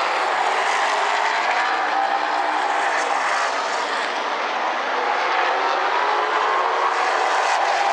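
Super late model race cars' V8 engines running at speed around an oval track, a loud, steady engine drone with no break.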